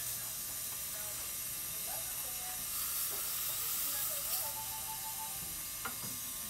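Dental saliva ejector sucking with a steady hiss. A short run of quick electronic beeps sounds about two-thirds of the way through, and a single click comes near the end.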